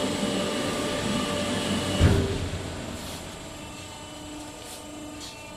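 EPS foam pattern-pressing machine running with a steady mechanical hum, with a single heavy thump about two seconds in as the press opens. After the thump the hum drops quieter.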